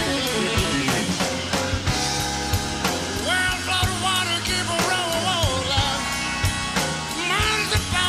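Live electric blues band playing a slow blues: electric guitar from a Fender Stratocaster over bass, drums and keyboards, with singing at the microphone. From about three seconds in, bent, wavering high notes come and go.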